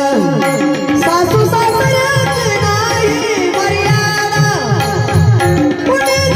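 Tabla playing a steady rhythm under a bulbul tarang (Indian banjo), whose strings sound quick falling runs about a second in and again around four to five seconds in.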